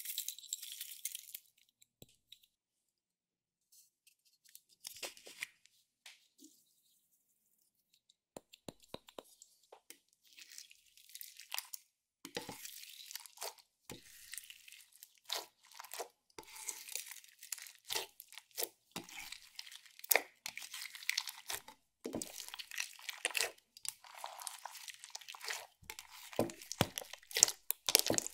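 Sequins and glitter patter into a glass dish of clear slime at the start. After a mostly quiet stretch, the slime is pressed, folded and stretched by hand with the sequins mixed through, giving many quick squishing clicks and pops that grow denser and louder toward the end.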